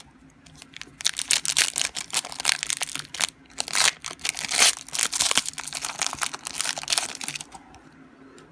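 Foil wrapper of a basketball trading-card pack being torn open and crinkled by hand, a dense run of crinkling from about a second in until near the end.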